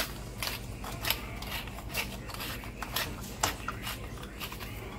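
Hand-twisted pepper grinder cracking black peppercorns: an uneven run of grinding clicks, about two or three a second.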